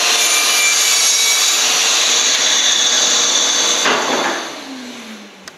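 Festool sliding mitre saw cutting through a timber handrail at full speed. About four seconds in, the cut ends and the motor's whine falls away as the blade spins down, with a short click near the end.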